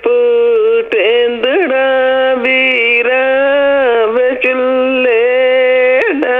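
A single voice singing a Punjabi folk song unaccompanied, in long, drawn-out notes that bend slowly in pitch, broken by short pauses between phrases.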